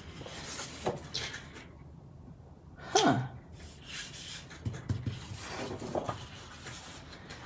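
Large sheets of patterned paper sliding and rustling against each other as they are turned over. About three seconds in comes one short, breathy sound with a falling pitch, like a brief voice or whine.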